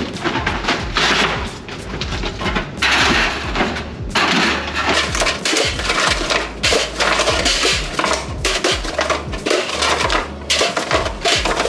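Soda cans clattering and knocking as they are loaded by hand into a vending machine, a run of many quick metallic knocks, over background music with a steady bass.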